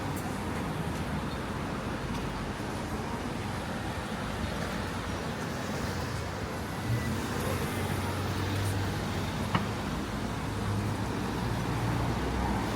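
Steady outdoor background noise with a low engine-like rumble, like distant traffic, and a single sharp click about nine and a half seconds in.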